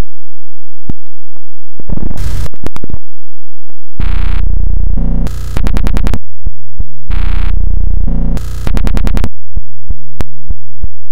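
Heavily distorted, clipped electronic music at full volume: a short burst about two seconds in, then from about four seconds a loud pulsing loop with a deep bass that repeats every three seconds or so, with sharp clicks between the blasts.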